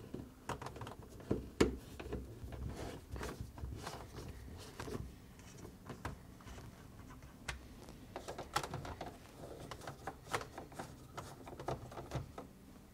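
Hand-held 1/4-inch nut driver backing screws out of a refrigerator's plastic ice box housing: faint, scattered clicks and ticks of the driver and plastic parts being handled, with a sharper click about one and a half seconds in.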